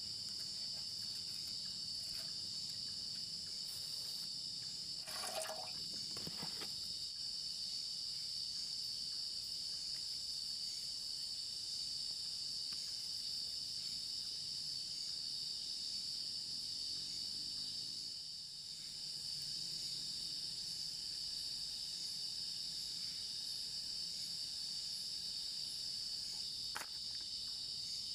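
Night chorus of crickets and other insects: a steady high-pitched trilling. A brief noise cuts through about five seconds in, and faint clicks come near the end.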